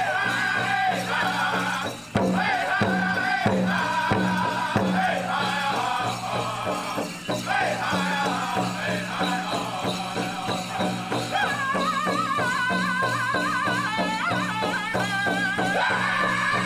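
Powwow drum group singing a prairie chicken dance song: an even, steady beat on a big powwow drum under high, wavering voices, which grow louder and higher about eleven seconds in.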